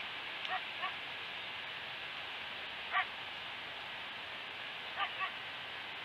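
Short distant animal calls over steady outdoor hiss: a pair about half a second in, a single louder call near the middle, and another pair near the end.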